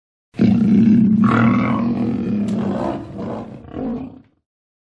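A lion's roar, the MGM film-logo roar: one long roar starting about half a second in, followed by two shorter, weaker grunts before it stops about four seconds in.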